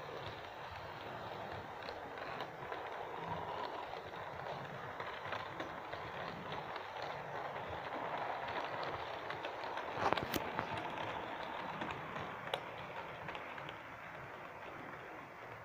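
Model railway train, a diesel locomotive pulling coaches, running along the track: a steady motor and wheel rumble that grows as it passes close and eases near the end, with a sharp click about two-thirds of the way through and a smaller one shortly after.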